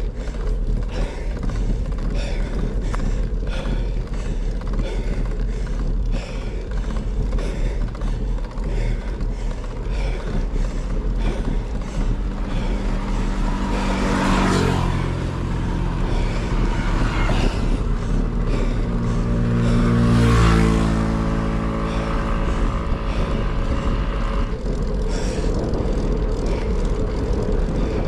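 Wind rushing over the microphone on a moving bicycle, with motor traffic going by. Two vehicles pass, about halfway through and again some six seconds later, and each engine note drops in pitch as it goes by.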